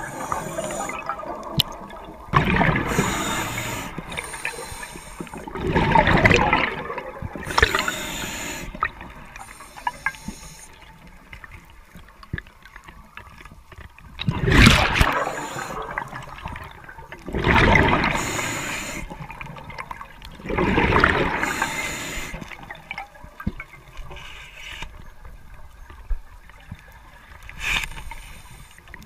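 Underwater bubbling from a diver's exhaled air, swelling in bursts every three to four seconds with quieter water noise between.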